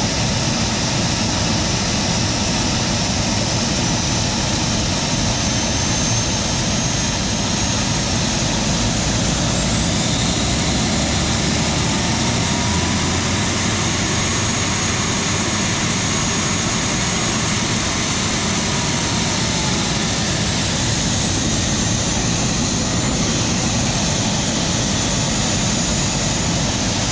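Small homemade turbojet running on a ground test, exhausting through a welded turboshaft turbine housing with a new exhaust bleed pipe. It gives a steady jet roar with a turbine whine that climbs in pitch about ten seconds in, holds, and sinks back about twenty seconds in.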